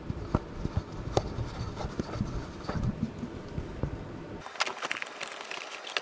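Handling noise: scattered knocks and rubbing with a low rumble as the camera is set in place. About four and a half seconds in, the rumble drops away and a quick run of clicks and crinkles follows as an electric burner is handled in its plastic bag and foam packing.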